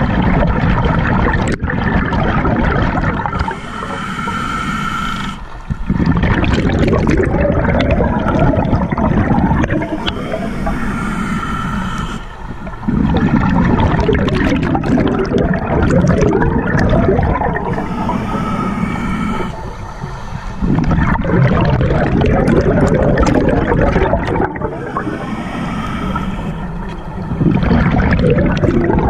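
Scuba diver breathing through a regulator underwater, heard through an underwater camera housing: four hissing inhales with a faint whistling tone, each followed by a long, loud bubbling rush of exhaled air.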